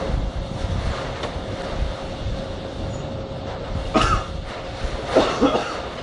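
Rear wheel of a Mitsubishi Grunder turning on its hub, raised on a lift, with a steady low rumble from the worn rear wheel bearing. A knock comes about four seconds in and short squeaks about a second later.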